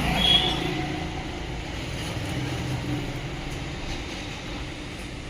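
Steady low mechanical rumble of workshop or traffic noise, with a short high squeal just after the start.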